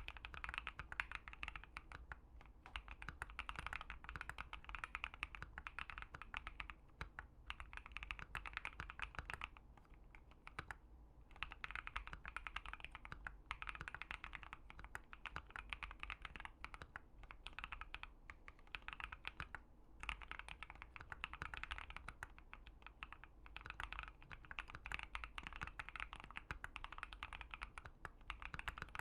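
Typing on a Keychron Q1 mechanical keyboard fitted with Gazzew Boba U4T tactile switches on an FR4 plate: runs of keystrokes broken by a few brief pauses.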